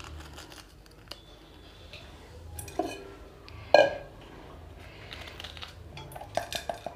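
A small knife and dishes clinking while seeds are cut out of bell pepper halves: faint scraping, a sharp ringing clink just before four seconds in, and a quick run of light clinks near the end.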